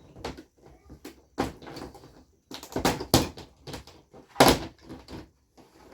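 Knocks and clatter of a flat-screen TV's panels and frame being handled as the set is taken apart, with a few sharp knocks, the loudest about four and a half seconds in.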